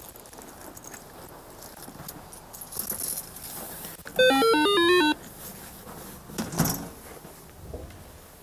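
Apartment door intercom playing its short electronic unlock tune as a key fob is touched to its reader: a quick run of beeping notes jumping up and down for about a second, the door lock released. About two seconds later comes a loud clunk from the steel entrance door.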